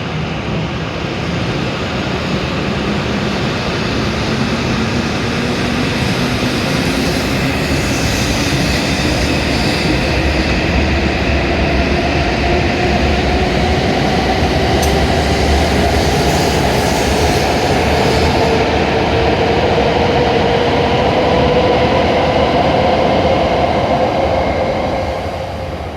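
W7-series Shinkansen train accelerating away from the platform: its traction motor whine climbs steadily in pitch while the running noise builds, then falls away near the end.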